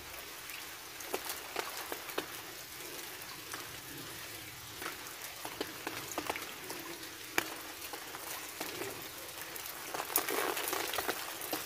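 Rain falling on river water: a steady hiss dotted with many small drop ticks, growing a little heavier near the end.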